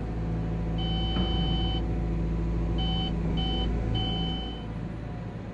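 Caterpillar hydraulic excavator's diesel engine and swing hydraulics running, with an electronic in-cab alert tone beeping: one long beep about a second in, then three shorter beeps, the e-Fence swing-limit warning as the swing reaches its set boundary and stops. The engine and hydraulic sound eases near the end.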